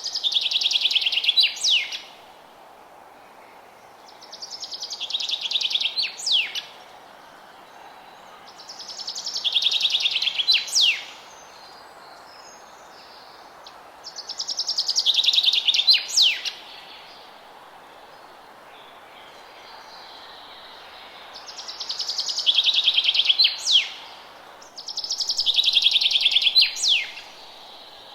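A songbird singing the same song six times, a few seconds apart, with a longer pause past the middle. Each song is a rapid trill of about two seconds that grows louder and ends in a sharp sweeping note. A steady hiss sits underneath.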